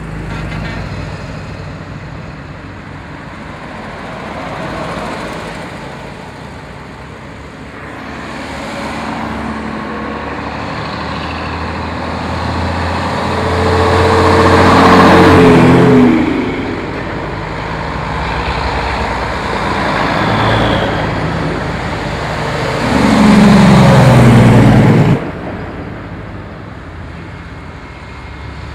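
Vintage trucks and classic cars driving past one after another, their engines and tyres swelling as each one goes by. A heavy old truck passes loudly around the middle, and another loud pass near the end has its engine note dropping then rising before it cuts off suddenly.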